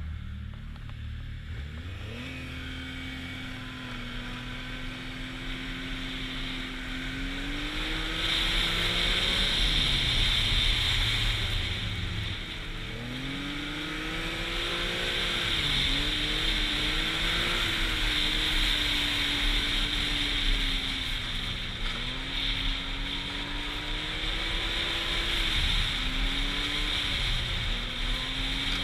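Arctic Cat snowmobile engine riding along a trail: it starts low and rises a couple of seconds in, then its pitch climbs and falls several times with the throttle, dipping around the middle and again near the end. A steady rushing hiss runs under it and gets louder when the sled speeds up.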